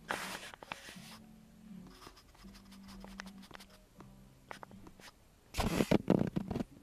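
Scratching and rustling noises: a burst at the start, scattered light clicks in the middle, and a louder scratching burst near the end, over a faint steady hum.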